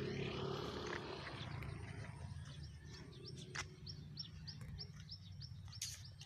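A motor vehicle's engine fading away in the first second or so, then a bird's short high chirps repeated evenly, about three a second, with a couple of sharp clicks.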